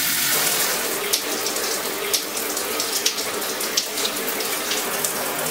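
Shower running steadily after being turned on at a thermostatic mixer valve, the water spray hissing without a break.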